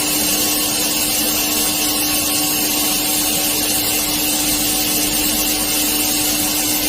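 Spindle of an SNK RB-200F 5-axis CNC bridge mill running at a steady 3,000 rpm during a spindle speed run-up test: an even mechanical hum carrying one clear steady tone, with a hiss over it.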